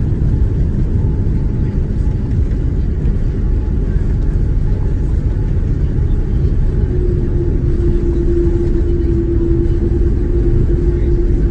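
Boeing 787-9 jet noise: a loud, steady rumble, joined about seven seconds in by a steady humming tone.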